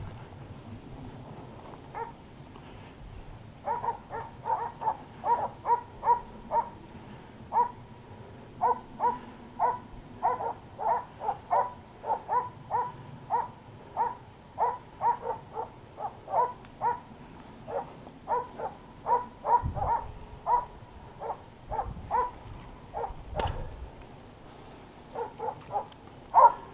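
Hunting dog barking over and over in the scrub, a steady run of about two barks a second, starting a few seconds in and stopping shortly before the end, as hounds do when working wild boar.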